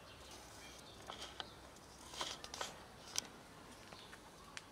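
Cat chewing dry kibble: a few faint, crisp crunches and clicks, scattered and irregular, with a small cluster about two seconds in.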